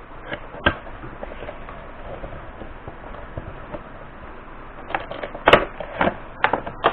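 Cardboard Funko Pop box being handled and its end flap opened: scattered light taps and scrapes, then a quick cluster of sharp clicks near the end.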